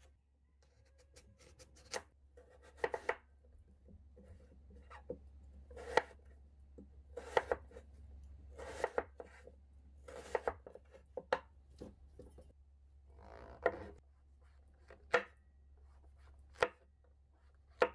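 Kitchen knife cutting through raw Korean radish and knocking on a wooden cutting board, one cut every second or two, each a short crunch ending in a sharp knock; near the end it cuts a king oyster mushroom.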